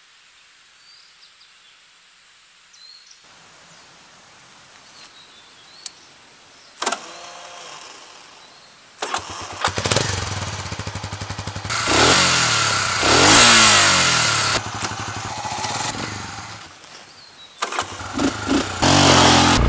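A single-cylinder motorcycle engine being started: a short burst of cranking about seven seconds in, then it catches about two seconds later and is revved up and down, easing off and revving again near the end.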